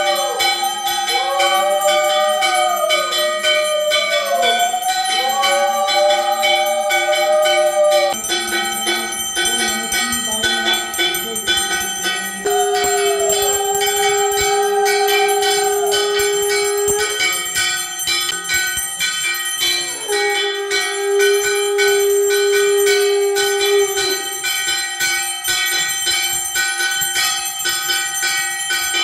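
Brass hand bell rung without pause during a puja arati. Over it, long tones slide up and down for the first eight seconds, then two long steady held notes sound, each about four seconds.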